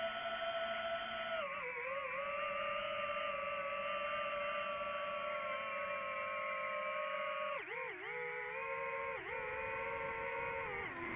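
DJI FPV drone's motors and propellers whining at a steady pitch. The whine steps down slightly about a second and a half in, then dips briefly and recovers several times near the end.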